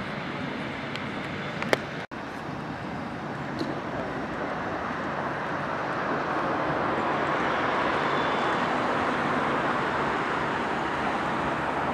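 Street traffic and a tram rolling toward the stop, the noise swelling from about four seconds in as it comes closer. A sharp click and a brief dropout about two seconds in.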